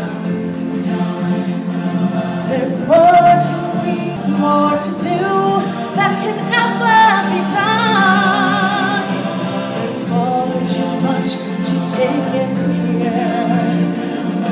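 Show music with a choir singing over a steady accompaniment. A voice rises in pitch about three seconds in, and wavering held notes come around the middle.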